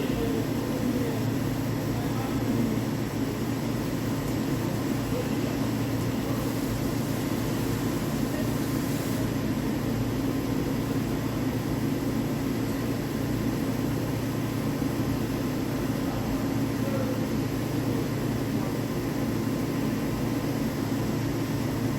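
Heavy CNC lathe running with a steady low machine hum and faint steady whine tones above it, typical of the spindle turning during a cut on a steel shaft.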